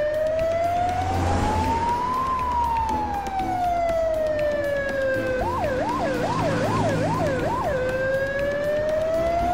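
Ambulance siren wailing in a slow rise and fall. About halfway through it switches to a couple of seconds of fast yelp, then goes back to the slow wail, over a low engine rumble.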